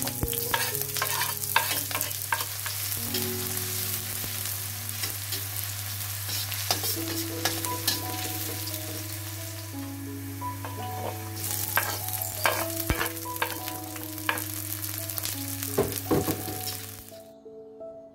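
Sliced shallots and garlic sizzling in hot oil in a stainless steel wok, with a metal spatula clicking and scraping against the pan as it stirs. The sizzling cuts off suddenly about a second before the end, leaving soft background music.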